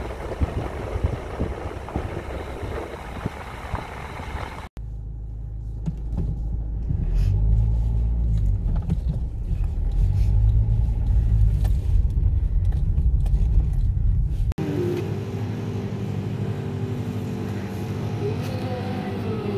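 Car driving at night: a noisy rush of road and wind noise, then after a sudden cut about five seconds in, a loud steady low rumble of engine and tyres heard inside the car's cabin. About fifteen seconds in it cuts to a quieter steady hum.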